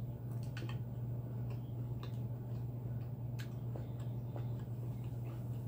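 Close-up chewing of a mouthful of food, heard as scattered soft clicks and smacks at irregular intervals, over a steady low hum.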